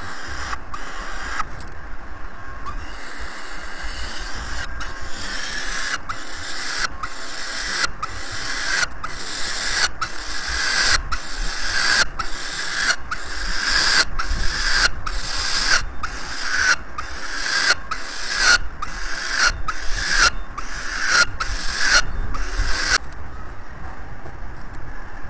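Peregrine falcon chicks food-begging: harsh, hissing screeches repeated a little more than once a second, stopping abruptly near the end.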